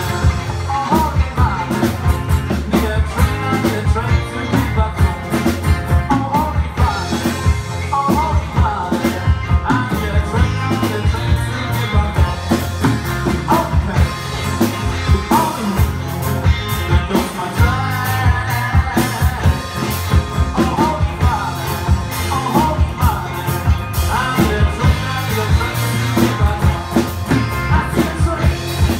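Live rock band playing: a steady drum beat with electric and acoustic guitars and bass, and a man singing.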